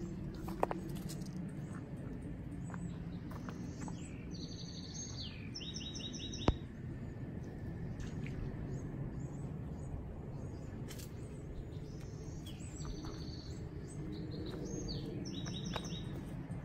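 A songbird singing two spells of rapid repeated high notes, a few seconds in and again in the second half, over a steady low background noise. Two sharp clicks stand out, the louder one just after the first spell of song.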